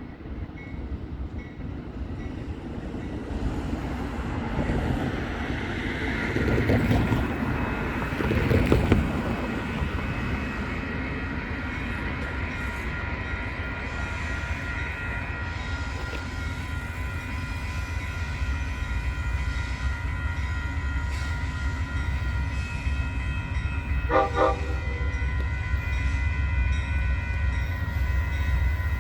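Train rolling by with a steady low rumble. A steady high-pitched tone comes in about halfway through, and a short horn note sounds near the end.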